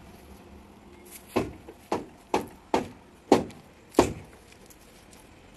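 A run of six sharp wooden knocks about half a second apart, starting about a second in, the last two loudest: heavy lambu logs striking one another as they are unloaded onto a pile.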